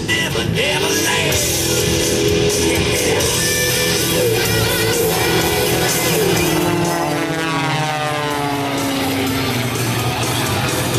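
Rock music with electric guitar played over the airshow loudspeakers. Around seven seconds in, an aerobatic propeller plane passes, its engine and propeller drone falling in pitch as it goes by.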